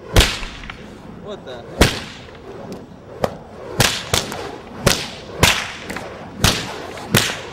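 A flaming fire whip being cracked over and over: about nine sharp cracks at uneven intervals, a few of them coming in quick succession.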